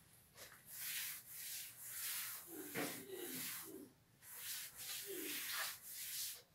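Chalk being wiped off a roll-up blackboard by hand: a series of faint rubbing strokes, about eight in all, with a short pause about four seconds in.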